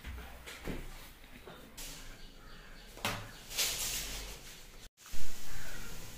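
Handling noises at a dining table: light knocks and scrapes as dishes and a food cover are moved, with a sudden louder knock just after the sound cuts out for a moment near the end.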